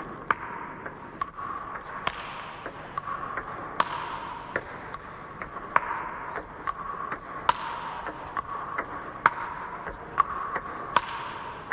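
Table tennis rally in a multi-ball drill: celluloid balls clicking off the table and the bats about once or twice a second as the coach feeds and the player chops backhand and forehand.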